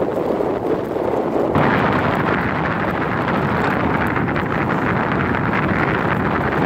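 Wind buffeting the phone's microphone, a steady rushing that grows stronger about a second and a half in.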